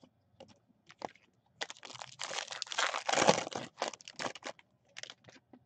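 Foil wrapper of a baseball card pack being crinkled and crumpled in the hands: scattered crackles, then a dense run of crinkling for about two seconds in the middle, tailing off into a few lighter crackles.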